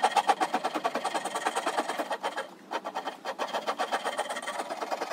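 Steel rasp scraping across a hardwood mallet handle, a continuous rapid rasping with a brief dip about two and a half seconds in.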